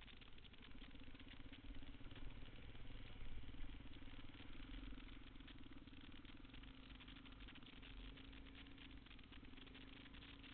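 Motorcycle engine running at low speed with one steady note that rises slightly near the end, over a fast rattling.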